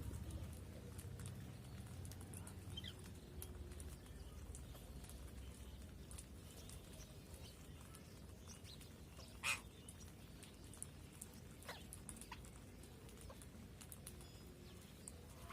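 Faint sounds of pet birds: scattered light clicks and scratches, with one short, sharp sound about nine and a half seconds in.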